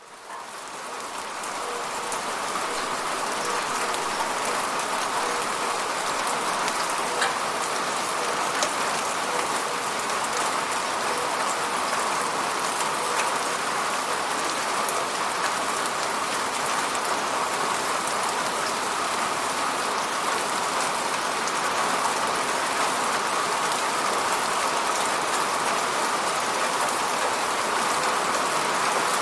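Steady rain falling on hard surfaces, an even hiss with scattered individual drop taps. It fades in over the first two seconds, then holds steady.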